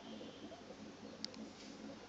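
Faint steady low hum with a slight flutter, and one short click a little over a second in.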